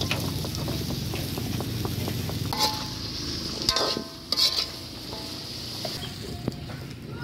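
Long beans and potato chunks sizzling as they land in hot oil in a metal wok, then a metal ladle stirring and knocking against the wok with a few short ringing clanks.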